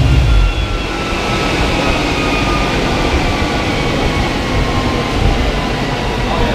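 Chassis dyno rollers and the Mustang's drivetrain spinning down after a full-throttle pull: the engine's heavy low rumble drops away about half a second in, leaving a steady rush with a whine that slowly falls in pitch as the rollers coast down.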